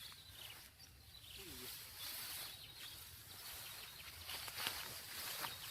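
Faint outdoor ambience: a high hiss that swells and fades every second or two, with a few faint short chirps.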